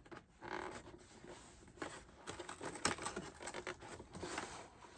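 Fingers scratching and prying at a stiff cardboard advent calendar door, with card and paper rustling and tearing and a sharp click about three seconds in.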